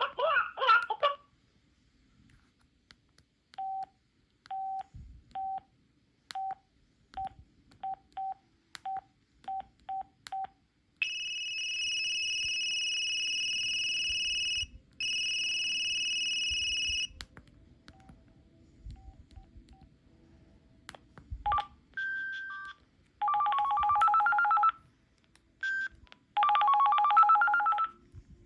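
Samsung SPH-N400 mobile phone sounds. First come about a dozen short keypad beeps, unevenly spaced, as buttons are pressed. Then a high steady electronic tone runs for about six seconds with one short break, and near the end come two brief melodic ringtone snippets.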